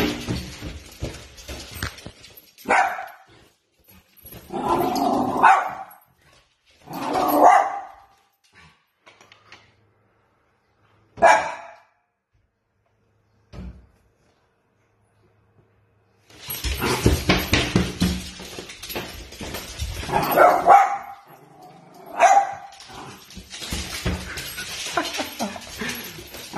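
Small terrier barking at a dust mop pushed along a wooden floor: single barks and short runs of barks with pauses between, then busier barking over a rough scuffling noise in the second half.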